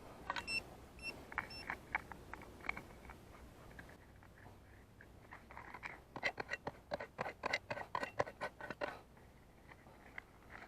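A metal detector gives three short high beeps over a target, then a hand digger scrapes and crunches into gravelly soil in a quick run of short clicks, busiest from about six to nine seconds in.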